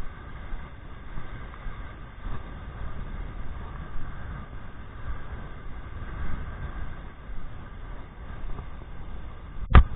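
Wind rumbling and buffeting on the camera microphone, with surf breaking behind it. Near the end, a single sharp knock as a hand bumps the camera.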